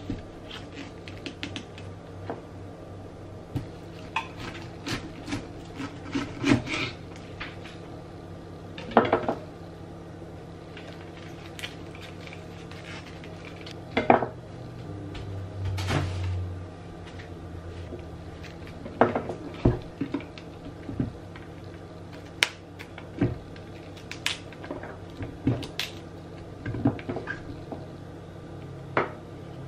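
A head of cauliflower being broken apart by hand and cut with a knife on a bamboo cutting board: irregular sharp snaps of stalks and leaves and knife taps on the board. A faint steady low hum runs underneath.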